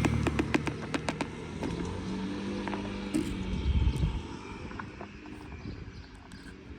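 A passing car's engine hum fading away, with a quick run of sharp clicks in the first couple of seconds and a few more later.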